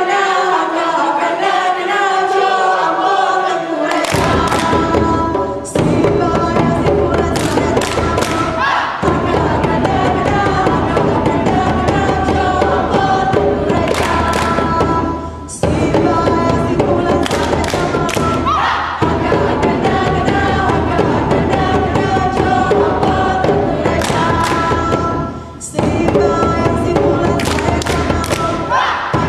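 Group of voices singing a Saman chant in unison, joined about four seconds in by fast, tightly synchronised hand clapping, body slapping and djembe hand drums. The percussion drops out briefly about five times and picks up again.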